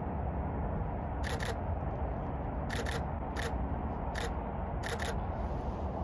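Canon EOS 6D Mark II DSLR shutter firing five times, in short sharp clicks at uneven intervals, over a steady low rumble of distant traffic.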